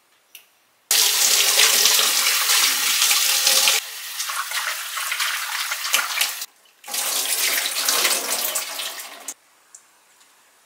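Kitchen tap running into a stainless steel sink, water splashing over leafy greens being rinsed in a glass bowl held under it. The rush goes quieter about four seconds in, stops briefly, then runs again and cuts off shortly before the end.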